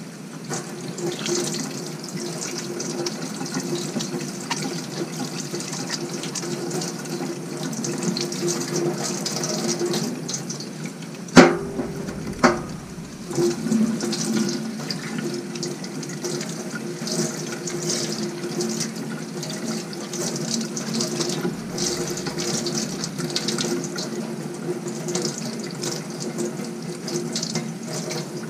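Water running from a tap into a sink as foam air filters are rinsed of filter cleaner. Two sharp knocks about a second apart come a little before halfway through.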